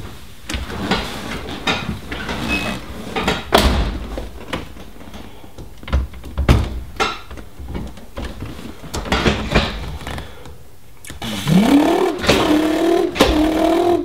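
Knocks, clunks and rustling as a person gets into a car's driver seat and takes hold of the floor gear shifter. About three seconds before the end a wavering pitched drone starts up and keeps going.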